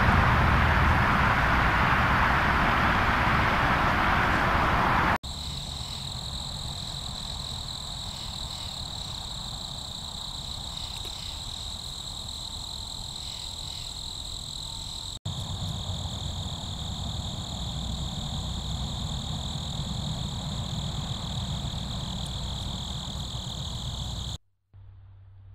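Night insects trilling steadily in a continuous high chorus, over a low steady hum. The first few seconds hold instead a loud even hiss, which cuts off abruptly.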